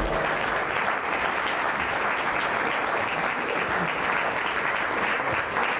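A congregation applauding steadily.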